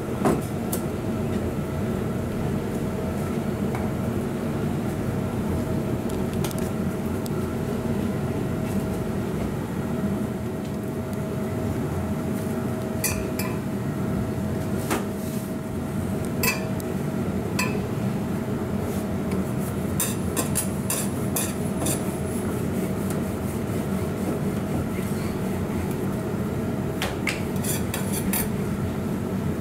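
Steady hum of kitchen equipment, with scattered clinks and knocks of a steel bowl and a wooden rolling pin on a stainless-steel counter as dough is portioned and rolled out. The clinks come in clusters in the second half.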